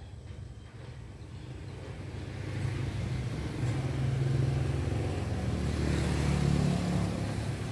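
An engine running, growing louder from about two seconds in and staying loud to near the end, with a low steady hum.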